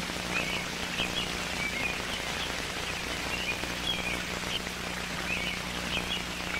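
A steady, rain-like hiss with faint birds chirping now and then, over a low steady hum.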